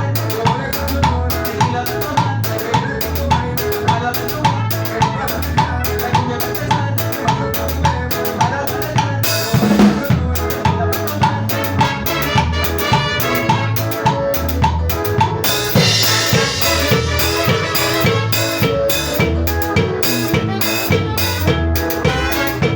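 A band playing an instrumental passage at rehearsal: drum kit keeping a steady beat of about two strokes a second over a bass line, with a drum fill near the middle and a cymbal crash about two-thirds of the way through.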